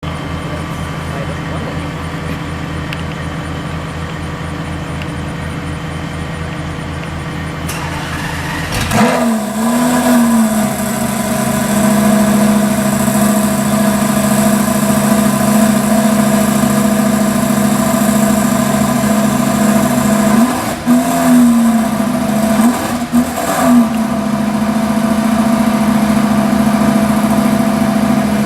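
Car engine idling, then revved about nine seconds in and held at a steady higher engine speed, with two more quick throttle blips later on.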